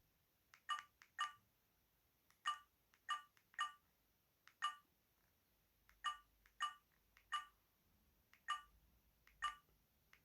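Alcatel VM202 mobile phone's keypad tones: about a dozen short, pitched key beeps at uneven intervals as buttons are pressed to scroll through the menus.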